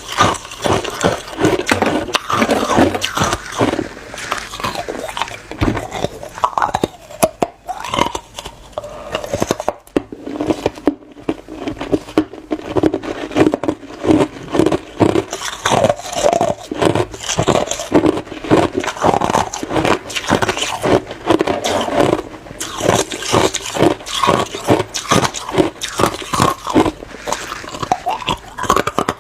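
A person biting and chewing hard clear ice: a steady run of sharp crunches and cracks, about two or three a second.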